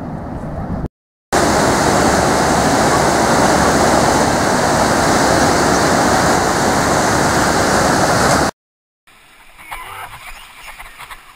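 Loud steady rush of breaking surf and white water, which starts and stops abruptly at cuts and lasts about seven seconds. Near the end a quieter stretch follows, with water splashing and lapping close to a surfboard.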